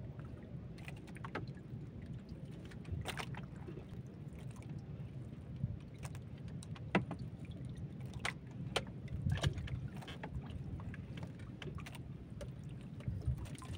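Low steady rumble of wind and water around a small fishing boat at sea, with scattered light clicks and taps as hook, bait and fishing line are handled on board.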